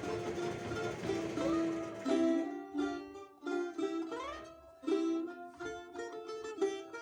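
Balalaika being played: a continuous tremolo for about two seconds, then separate plucked chords with a note sliding upward near the middle, and quicker single notes toward the end.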